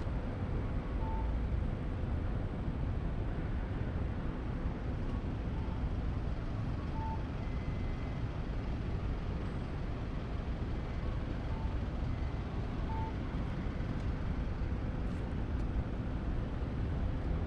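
Steady city street traffic rumble from passing cars and trucks, with a few faint short electronic beeps every few seconds.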